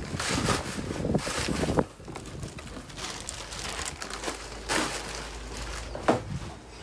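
Plastic wrapping crinkling and rustling in irregular bursts as plastic-bagged items in a cardboard box are handled, busiest in the first two seconds.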